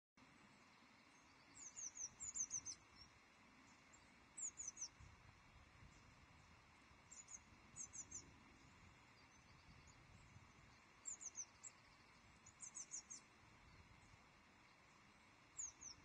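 A small songbird calling: short runs of three to five quick, high, falling notes, repeated every two to three seconds over a faint steady hiss.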